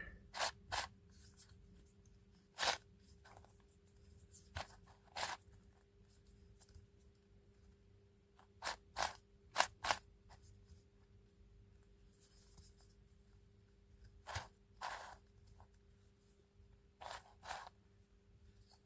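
Plastic pieces of a Sloppy Cube twisty puzzle clicking as its layers are turned by hand: about a dozen short, sharp clicks at irregular intervals, some in quick pairs.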